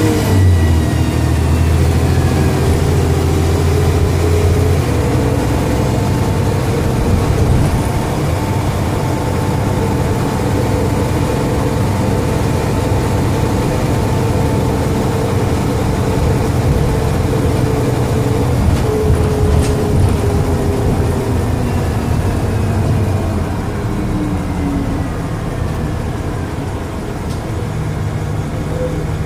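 Dennis Trident double-decker bus engine running under way with its Voith automatic gearbox, loud and steady. A high whine falls in pitch near the start and again over the last several seconds. The uploader puts the loudness down to a bad turbo.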